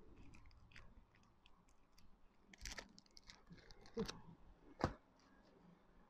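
Faint rustling and clicking of a cardboard card-deck box and its paper guidebook being handled, with a couple of sharper taps about four and five seconds in.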